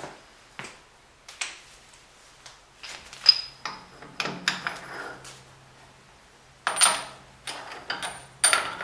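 Steel fixture parts clanking and scraping against the cast-iron compound rest of a metal lathe as a jig block is set down and fitted where the tool post was. It comes as a string of separate metal knocks and slides, the loudest about three seconds in and again about seven seconds in, over a faint steady low hum.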